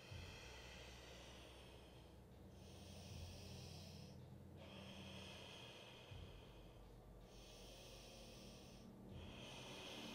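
Faint, slow, audible breathing of a yoga practitioner, in the steady ujjayi style of Ashtanga: about five long hissing breaths in and out, each near two seconds, with short pauses between them.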